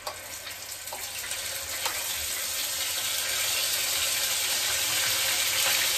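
Wet ground masala paste hitting hot oil in a kadai, sizzling and spattering. The hiss starts sharply and builds steadily louder, with a few light clicks.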